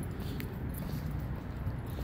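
Footsteps on asphalt pavement, a few faint separate steps over a steady low rumble.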